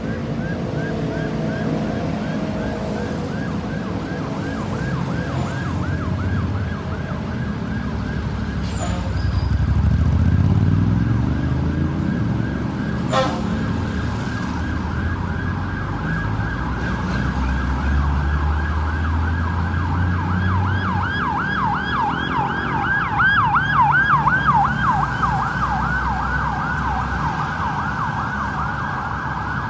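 Ambulance siren on a fast yelp, rapid up-and-down sweeps repeating several times a second, growing louder past the middle as the vehicle comes close. Vehicle engine noise runs beneath, swelling about a third of the way in.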